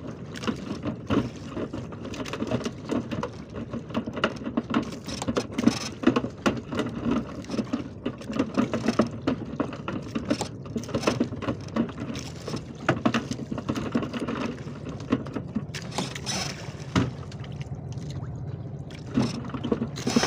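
Sea water sloshing and splashing against an outrigger boat's hull, with irregular knocks and clatter from the boat as a fishing line is hauled in by hand.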